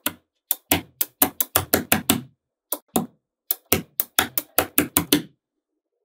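Small blocks of magnetic balls clicking as they are set down on a hard tabletop and snap against one another: a quick, irregular run of sharp clicks and knocks, about twenty of them, stopping shortly before the end.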